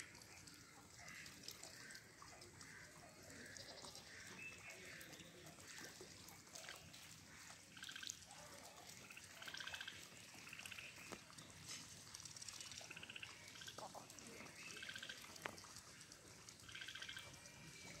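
Domestic ducks dabbling in shallow floodwater with faint drips and small splashes, and a few short, soft quacks, mostly in the second half.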